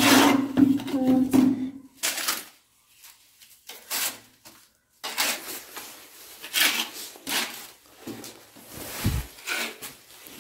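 Notched trowel scraping and spreading tile adhesive across the back of a ceramic wall tile, in a series of separate strokes, with a dull knock near the end. A voice speaks briefly at the start.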